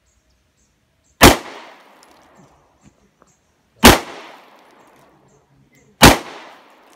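Three gunshots, two to three seconds apart, each sharp crack followed by a short echoing tail: test rounds fired into ISBI armored police-car door glass set up on a stand.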